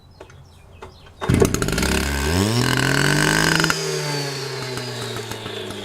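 STIHL TS400 cut-off saw's two-stroke engine starting with the choke off: it catches about a second in, climbs quickly in speed, holds high briefly, then drops back to a steady lower idle.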